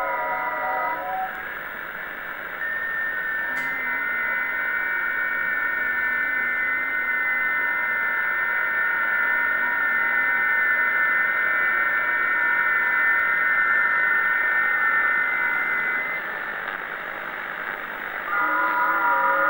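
Radio receiver audio of an unexplained, repeating radio signal over static hiss. Early on a wavering warble of several tones gives way to a few steady high tones over a slowly wavering low tone. These cut out about 16 seconds in, leaving only hiss, until the wobbling warble comes back near the end.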